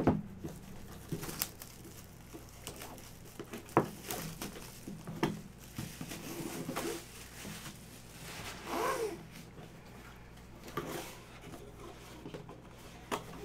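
Cellophane shrink wrap being torn and crinkled off a cardboard box, with scattered sharp clicks and taps as the plastic is pulled away and the box is opened.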